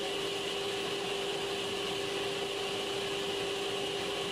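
Workshop machinery running with a steady hum: one constant mid-pitched tone over an even hiss, unchanging throughout.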